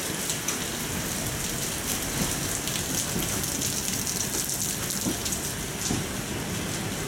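Steady rain with a dense, close patter of drops, over a departing passenger train rolling slowly past.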